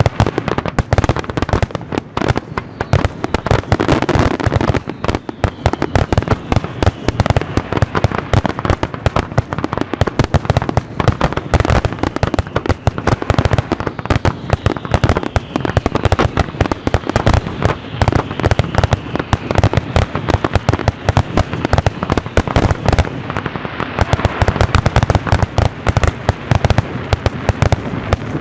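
Fireworks display: a dense, unbroken barrage of aerial shell bursts and crackling, with many bangs a second and no pause.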